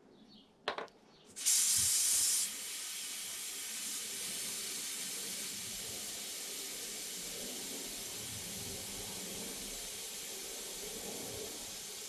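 Air hissing out through the valve of an over-inflated bicycle inner tube as it is let down. It starts abruptly about a second and a half in, loudest for the first second, then settles to a steady hiss.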